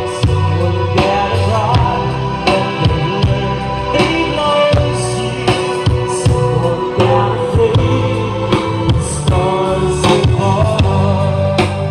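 A gospel-style song with singing over heavy bass and a steady drum beat, played back through a subwoofer 'scoop' cabinet and bullet tweeter for a sound test.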